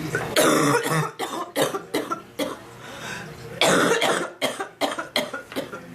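A sick woman coughing in fits: a hard cough about half a second in, followed by a string of shorter coughs, then another hard cough after about three and a half seconds and more short ones.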